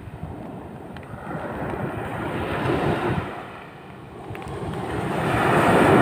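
Ocean surf washing onto a sand beach: a smaller wave swells and fades in the first half, then a larger wave breaks and rushes in, loudest near the end.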